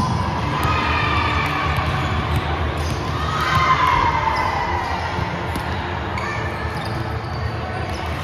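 Indoor volleyball gym sound: balls being struck and bouncing on the hard court floor, over a steady hum of players' voices.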